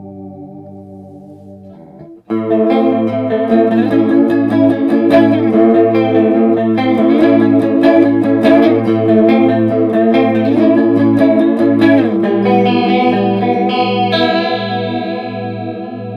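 Electric guitar, a Fender Jaguar, played through an Electro-Harmonix Small Clone chorus pedal. A chord rings and fades with a wavering shimmer. About two seconds in, loud strummed chords start, wobbling in pitch with the chorus sweep, and they ring out near the end.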